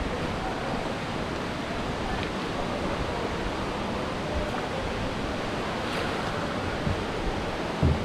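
Steady rush of river water around a paddled raft, with wind on the microphone and a brief low thump near the end.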